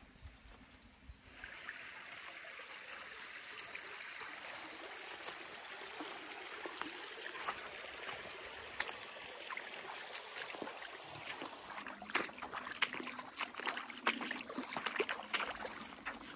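Shallow, rocky creek trickling steadily, starting about a second in. From the middle on, many short sharp clicks and rustles come over the water sound, thickest near the end.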